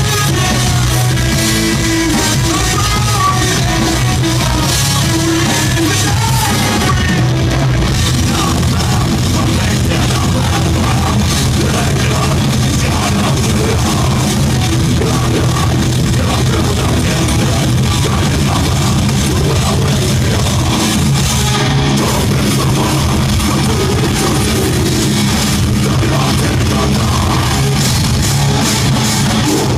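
Metalcore band playing live at full volume: distorted electric guitars, bass guitar and drum kit.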